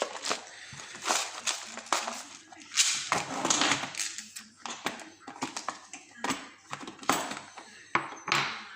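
Irregular clicks, rattles and short scrapes of small metal tools and parts being handled as a lock-pinning kit is got out to take apart a pin-tumbler lock.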